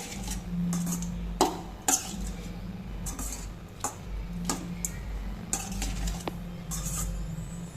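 A spoon clinking and scraping against the cooking vessel in irregular strokes as cooked rice is stirred to mix in salt and tempering, over a steady low hum.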